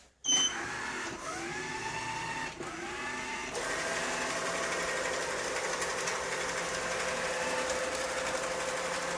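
Robot vacuum cleaner switched on: a short beep, then its motors whine up in pitch a couple of times. About three seconds in the suction and brushes come on louder, and it runs with a steady whir as it starts cleaning the floor.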